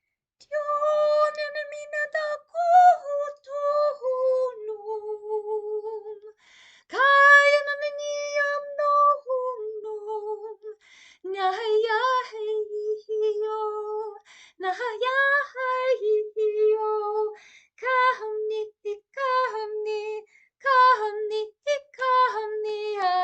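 A woman's solo voice toning: unaccompanied, wordless sung notes held for a second or two each, in phrases of a few seconds with short breaks for breath, often stepping down to a lower held note.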